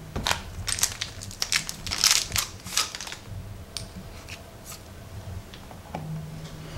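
Plastic packaging crinkling and crackling as it is handled, in a dense run over the first three seconds, then a few lighter clicks and rustles.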